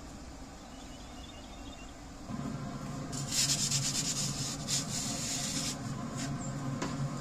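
Wooden pizza peel scraping and rubbing as a calzone is slid off it onto a pan inside a pellet grill, with a run of scrapes in the middle. A steady low hum starts about two seconds in.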